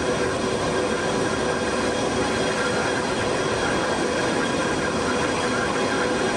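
Large military jet transport aircraft running while parked: a steady rushing jet noise with a constant high whine over it.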